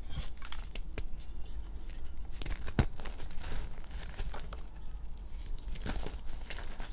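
Hands crushing and crumbling reformed gym chalk in a heap of loose powder: irregular crunching and crackling as the chunks break apart, with one sharper snap a little under three seconds in.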